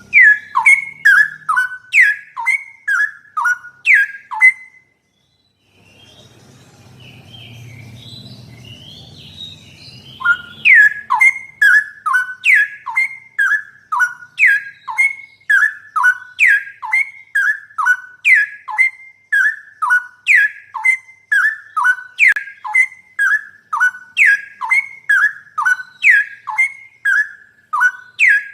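Straw-headed bulbul (cucak rowo) song: loud, clear whistled notes falling in pitch, repeated at about two a second in a steady run. It breaks off for about six seconds a few seconds in, leaving only a faint low hum, then resumes.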